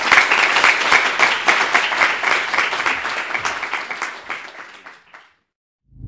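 Small audience applauding with steady clapping that tapers off and stops about five seconds in.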